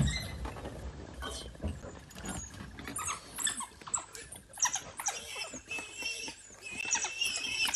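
African wild dogs feeding on a warthog: a run of short rustling and tearing sounds, with thin high-pitched squeals and calls from the kill growing more frequent near the end.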